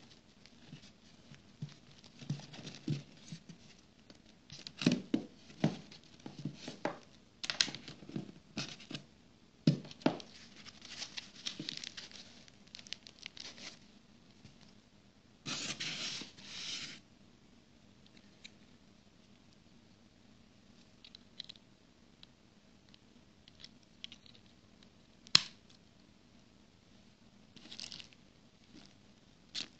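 Plastic packaging and a cardboard box being handled by hand: scattered bursts of rustling, crinkling and tearing, with a longer tearing rustle about halfway through and a single sharp click later on.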